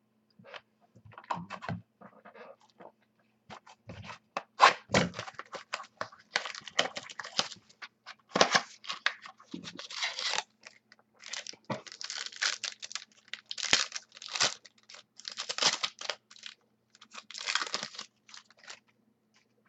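Sports trading-card packs and cards being handled: an irregular run of tearing, crinkling and scraping from wrappers being opened and cards sliding against each other.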